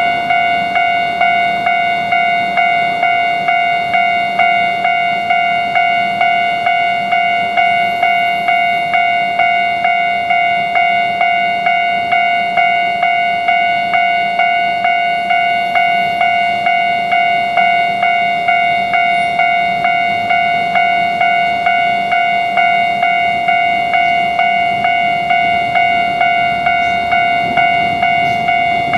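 Japanese railroad level-crossing warning bell ringing its repeated "kan-kan" at an even pace of about two to three strokes a second, signalling that a train is coming.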